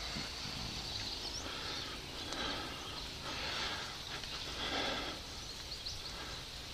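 Outdoor ambience: steady background noise with a few faint high chirps.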